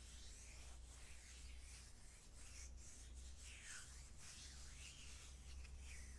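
Hands rubbing on bare skin: a palm sliding along a forearm, then palms rubbing together, making faint, irregular soft swishing strokes.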